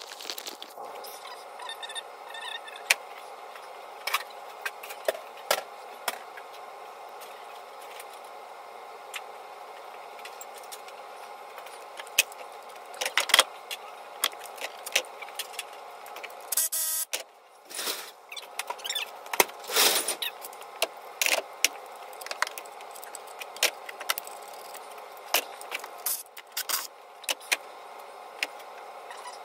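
Hand tools working on the cylinder head of a 2012 Chevrolet Malibu's Ecotec four-cylinder engine during head removal, heard as a time lapse: many quick metallic clicks and clanks over a steady hum.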